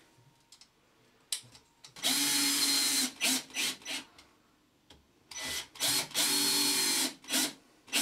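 Cordless drill-driver driving two screws through the alarm keypad's back plate into wall plugs. Each screw gets a steady run of about a second, then three short blips of the trigger as it seats.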